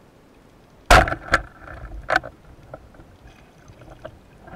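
Band-powered speargun fired underwater: a sudden loud snap as the rubber bands release about a second in, followed by two more sharp clacks and scattered lighter clicks and rattles.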